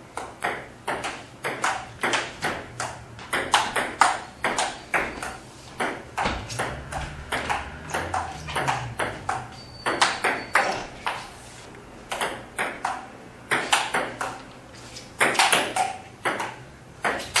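Table tennis ball clicking off the paddles and the table in quick rallies, sharp ticks several times a second, with a short lull about twelve seconds in.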